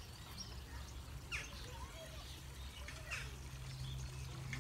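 Birds chirping in open-air ambience: short, quickly falling chirps, one about a second and a half in and another about three seconds in, over a low steady hum.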